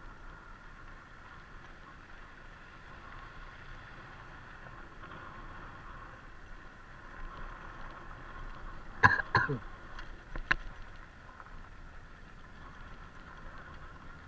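Motorcycle running at low speed, rolling slowly over a gravel lot, with a steady faint running sound. A few sharp knocks come in a quick cluster about nine to ten seconds in.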